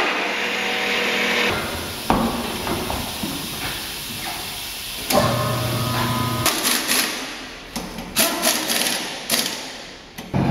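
Tire-shop machinery at work: a machine motor runs steadily for about a second and a half, starts up again around five seconds in, then gives way to a run of irregular metal clanks and knocks from tools and wheels.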